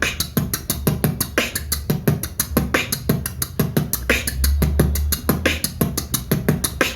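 Beatboxing: a vocal drum pattern built from mouth-made kick drum, hi-hat and snare sounds, in a quick, even rhythm.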